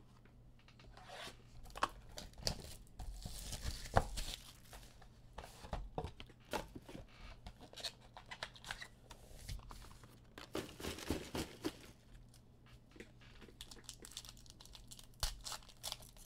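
Hands tearing open Panini Luminance football card packaging and foil packs: bursts of tearing and wrapper crinkling among scattered small clicks and rustles.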